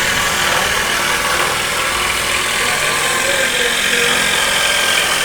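A woodworking machine's electric motor running steadily, with no change in speed or load.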